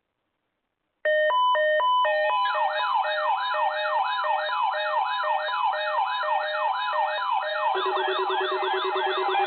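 Electronic emergency alert tones: a few short beeps at different pitches, then a synthetic siren-like sweep rising over and over about twice a second, layered over steady tones. Near the end a lower steady tone joins and the sweeps come a little faster.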